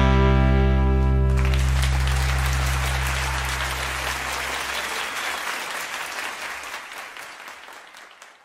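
The final held chord of a rock song, guitars ringing, cuts off about a second in and gives way to applause that fades away near the end.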